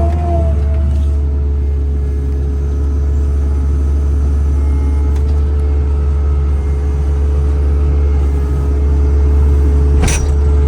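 Takeuchi TL12 tracked compact loader's Kubota diesel engine running steadily under a low rumble, with a steady whine above it and one short sharp clank near the end.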